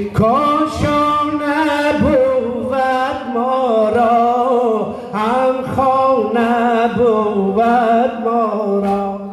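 A man singing a Persian Muharram mourning lament (noheh) in long, wavering, ornamented notes without clear words, over a steady low drone. There are a few dull low thumps at intervals.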